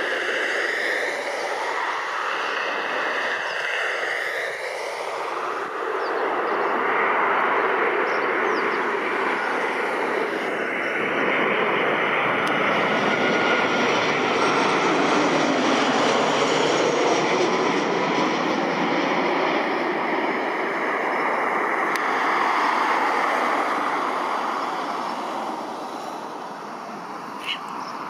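Boeing 737-800's CFM56-7B turbofan engines on final approach, passing low overhead: a jet rumble and whine that builds over several seconds, stays loud for about ten seconds with tones that sweep in pitch as it passes, then fades as the plane moves away. A short sharp sound near the end.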